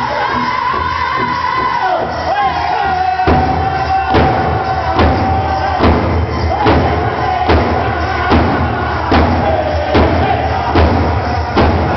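Powwow drum group singing a high-pitched song together over a large powwow drum. A few seconds in, the drum comes in with steady heavy beats a little faster than one a second.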